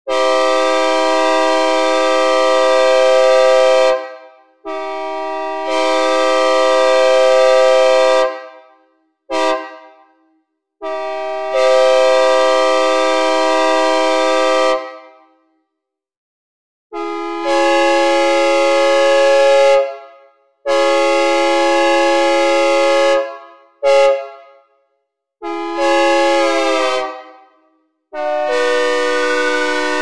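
Synthesizer recreation of a Nathan K3LA three-chime locomotive air horn, sounding a series of long blasts of about two to four seconds broken by a few short toots. Each blast fades out with a brief reverberant tail.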